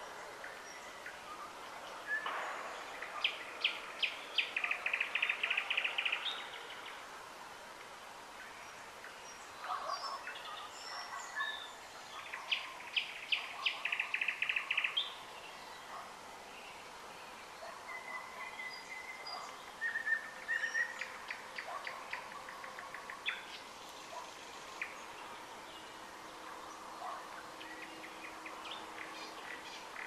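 A songbird singing in loud phrases: twice, a run of separate sharp notes leads into a fast rattling trill lasting a couple of seconds, then shorter varied phrases with brief whistled notes follow.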